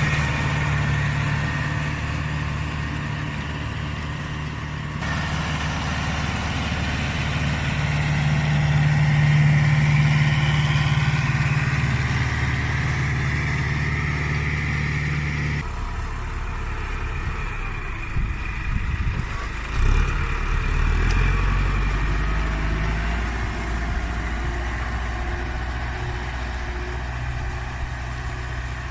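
Case CX80 tractor's diesel engine running steadily under load while pulling a four-furrow plough through heavy soil. The engine sound changes abruptly twice, about five and about fifteen seconds in.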